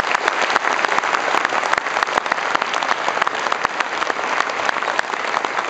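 Audience applauding: dense, steady clapping from a large crowd in a hall.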